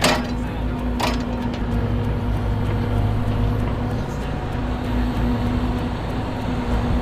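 Excavator engine running steadily at a constant speed, with two sharp knocks, one right at the start and one about a second in.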